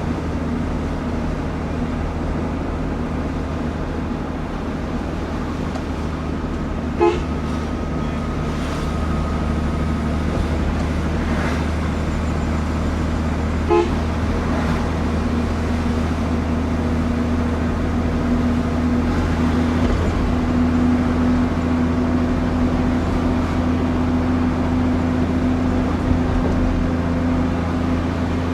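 Heavy truck engine running steadily while driving, with two short horn toots about seven seconds apart. The engine rises a little in pitch and loudness a bit past the middle.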